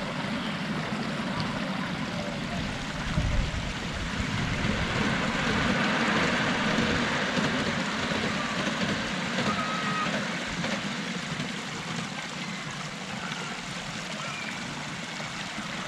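Miniature railway train carrying passengers across a small bridge, its steady rumbling noise growing louder through the middle and then easing off, over a constant outdoor noise.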